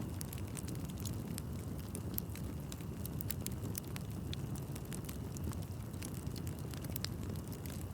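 Wood bonfire burning: a steady low rumble of flame with many sharp, irregular crackles of burning wood throughout.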